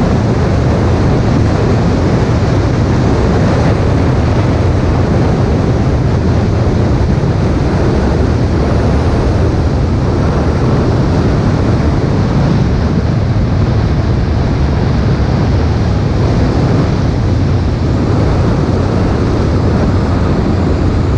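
Steady wind rush and tyre noise from a vehicle driving along an asphalt road, with wind buffeting the microphone.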